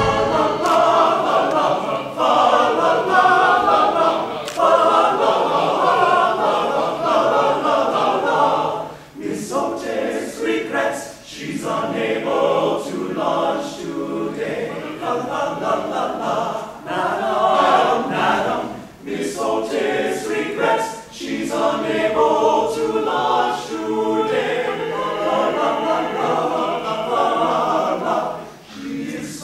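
Large men's chorus singing together in harmony, in phrases with short breaks between them.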